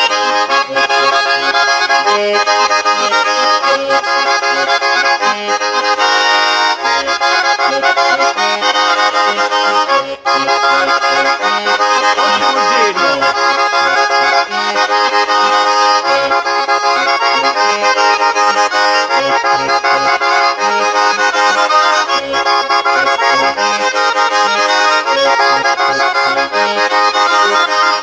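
Small diatonic button accordion (organetto) played solo: a tarantella, with sustained right-hand melody and chords over a regular pulsing bass from the left-hand buttons.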